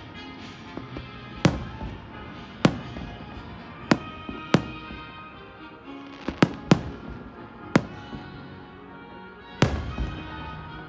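Fireworks shells bursting in about eight sharp bangs, irregularly spaced, two of them close together around the middle and the loudest near the end, over music playing throughout.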